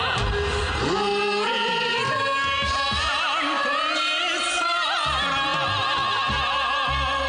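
Music: a held melody line with wide vibrato over accompaniment.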